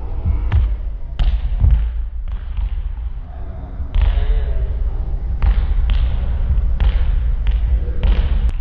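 Volleyballs being served by hand and bouncing on a wooden gym floor: about ten sharp smacks and thuds at uneven intervals, with voices in between.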